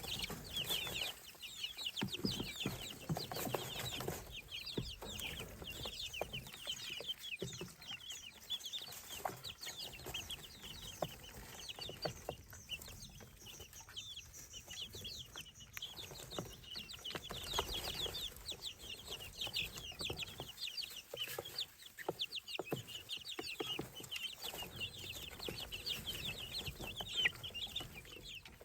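A flock of baby poultry (chicks, guinea keets and ducklings) peeping constantly, many short, high, falling cheeps overlapping one another.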